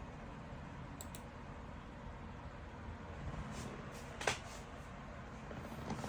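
A few scattered clicks over steady background noise: two faint ones about a second in and a sharper one a little past four seconds.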